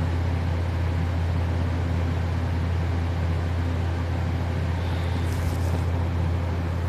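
A steady low hum throughout, with a sleeping person's faint breath about five seconds in between snores.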